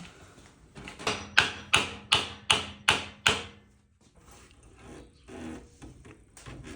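About seven quick, even taps, roughly three a second, each with a short ring, as a part is knocked through into place on a metal lathe.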